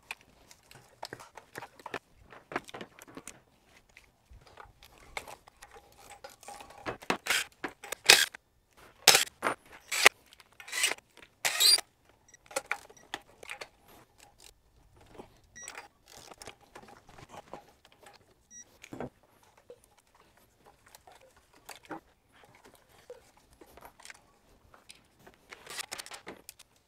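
Metal hand tools and plastic coil connectors clicking and clinking in short, scattered bursts, loudest about a third of the way in, as the ignition coils and spark plugs come out of the front bank of a Toyota 2GR-FE 3.5 L V6.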